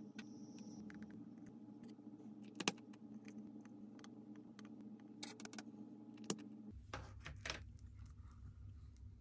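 Small metallic clicks and clinks of a stainless mesh watch-parts cleaning basket being handled with tweezers and its lid closed, with one sharper click a little over two seconds in. A low steady hum sits underneath and stops about seven seconds in, followed by a few more clinks.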